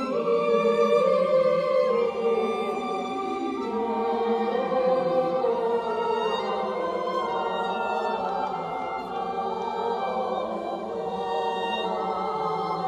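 Small women's choir singing in four upper-voice parts (SSAA), unaccompanied, with sustained overlapping vocal lines.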